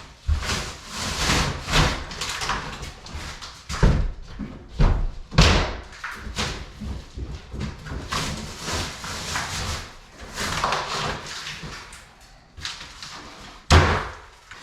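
Drywall being pried and broken away from a wall and its framing: a run of hard knocks and cracks, the loudest about four, five and a half and fourteen seconds in, with scraping and crumbling between them.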